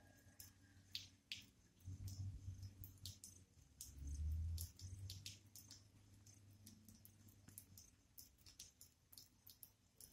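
Faint, irregular ticks of water dripping after rain over quiet outdoor ambience, with a few low rumbles.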